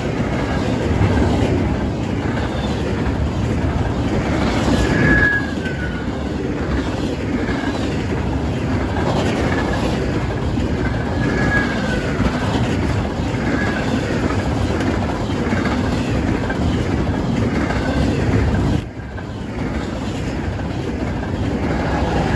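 Union Pacific freight train passing: the steady noise of rail cars rolling along the track, with faint brief high squeals of the wheels now and then.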